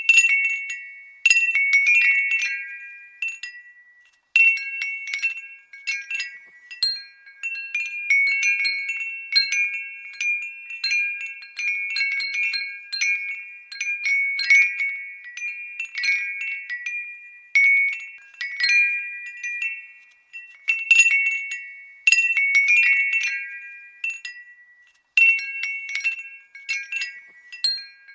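Glass wind bell jingling in irregular clusters of light strikes. Each cluster rings in a few high, clear notes that die away, with brief lulls every several seconds.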